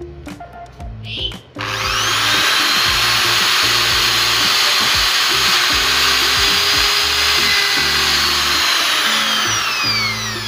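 Handheld electric drill with a twist bit boring into a black clamp block. It spins up about a second and a half in, runs steadily, and winds down near the end. Background music with a steady bass line plays underneath.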